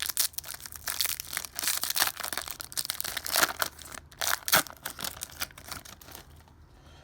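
A Pokémon TCG booster pack's foil wrapper being torn open and crinkled, a dense run of crackling that thins out near the end.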